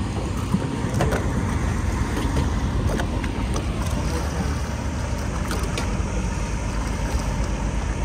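Steady low rumble of wind and sea around an offshore fishing boat, with a few light clicks and knocks scattered through it.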